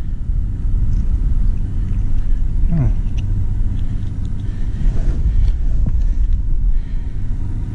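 Steady, loud low rumble of wind buffeting the microphone, with a brief falling tone about three seconds in.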